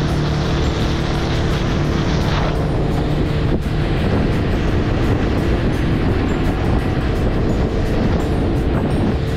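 Outboard motor running at a steady speed as the boat moves across choppy water, under an even rush of wind and water. The high rushing drops back a little about two and a half seconds in.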